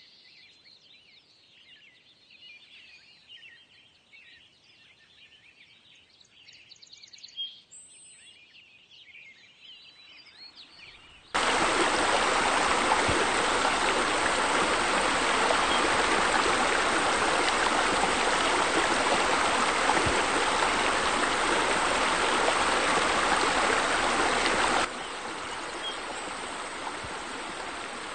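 Faint birdsong, then about eleven seconds in a loud, steady rush of churning water cuts in abruptly. A few seconds before the end it drops suddenly to a softer, steady water sound.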